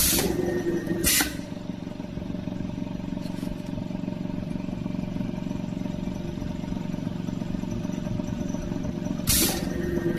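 A motor running steadily with an even hum, broken by two pairs of short loud noises, one pair at the start and another near the end.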